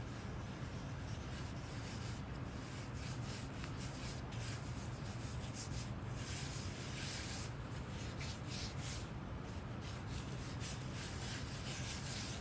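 Rubber-gloved hands rubbing oil into the bare wood of a small box: irregular soft rubbing strokes, louder for a stretch around six to seven seconds in, over a steady low hum.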